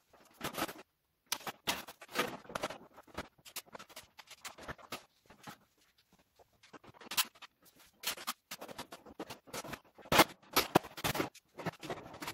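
Corrugated galvanized steel panels of a hexagonal raised garden bed kit being handled and fitted together: irregular metallic rattles, scrapes and knocks. There is a quieter pause in the middle, and the loudest knocks come near the end.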